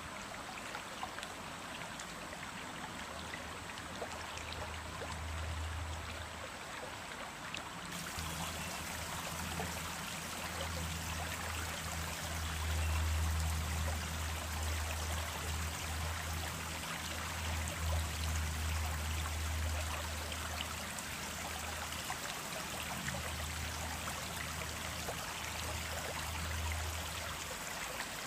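Running stream water: a steady rush and trickle, with a low rumble underneath that swells and fades.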